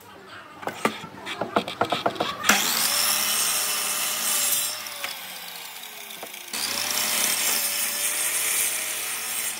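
Wooden blocks knock and clatter as they are handled. Then a miter saw starts suddenly and cuts through hardwood twice, about two and a half seconds in and again four seconds later, its motor pitch falling after each cut.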